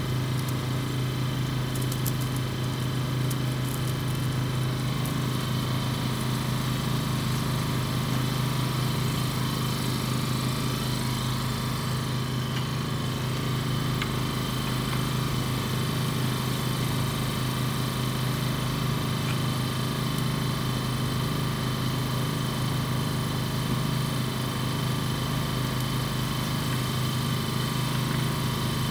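An engine idling steadily: a low, even drone that holds the same pitch and level throughout.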